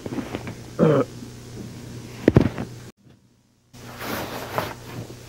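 A short voiced sound falling in pitch, then a single heavy thump. The sound then drops out completely for under a second at a tape cut, and comes back as rustling camera-handling noise.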